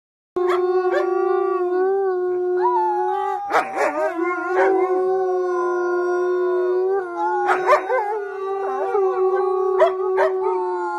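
Several large wolf-like canines howling together in chorus, long overlapping held notes at different pitches, with a child howling along. Bursts of short yips break in a few times.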